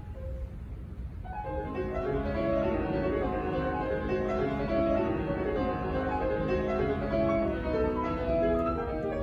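Solo grand piano: quiet over a low rumble at first, then from about a second and a half in, quick notes come in and build into dense, continuous playing.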